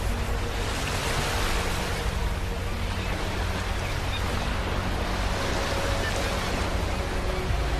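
Sea waves breaking and washing on a beach: a steady low surf rumble, with one wave's hiss swelling about a second in and slowly easing away.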